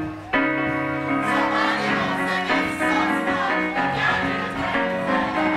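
Music: held chords that drop out briefly just after the start, then come back in and carry on.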